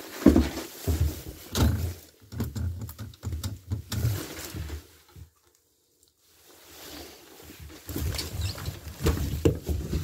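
Irregular low thumps, knocks and rustling from a handheld camera being moved and handled inside a small lift booth. The sound drops out completely for about a second and a half midway.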